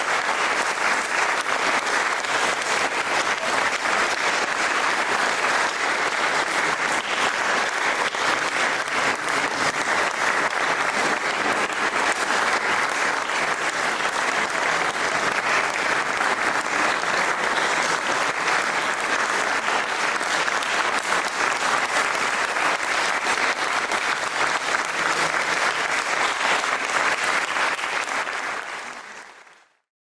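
Audience applauding steadily, a dense even clapping that fades out near the end.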